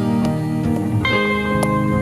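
Background instrumental music with plucked guitar, changing chord about a second in.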